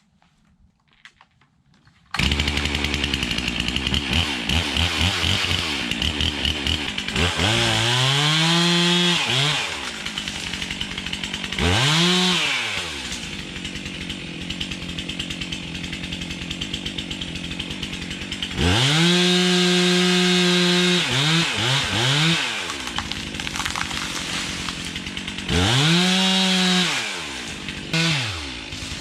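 Stihl chainsaw, coming in about two seconds in, idling between repeated revs to full throttle, several held for two or three seconds at a time.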